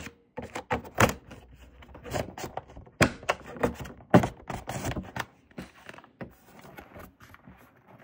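Irregular clicks and snaps of an LG UltraFine 5K monitor's back cover being pried loose from the frame, its hook clips releasing along the edge. The sharpest snaps come in the first half, and the clicks thin out toward the end.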